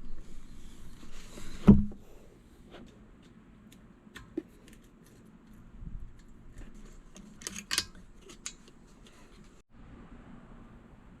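Scattered handling noises: one sharp knock a little under two seconds in, then faint clicks and a brief rustle about halfway through.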